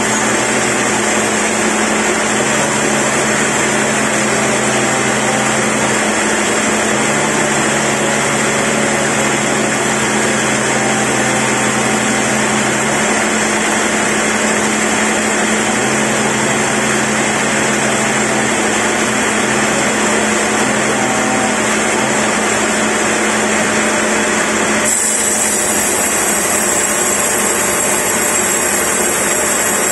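Sawmill band saw running and ripping lengthwise through a large log on the carriage: a loud, steady, dense machine noise with a constant low hum under it. The higher part of the noise changes abruptly near the end.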